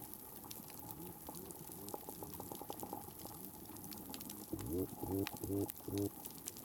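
Underwater reef crackle from snapping (pistol) shrimp: a steady scatter of sharp clicks and pops. Near the end come four or five louder, low, bubbling pulses.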